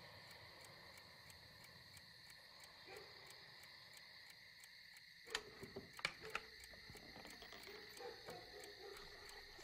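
Faint night ambience of insects chirring: a steady, high, evenly pulsing drone, with a few soft clicks about five to six seconds in.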